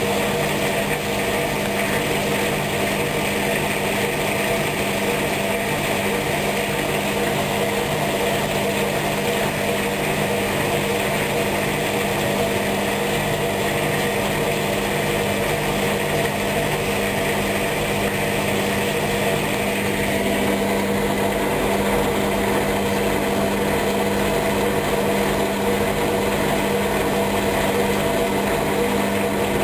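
Hoover washing machine running on its wool programme, its motor giving a steady hum with a constant low tone. About twenty seconds in, the higher hiss drops away while the hum carries on.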